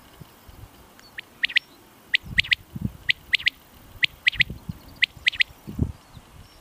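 Common quail giving its sharp three-note call, repeated five times about a second apart, starting about a second in. A few low dull thumps sound between the calls.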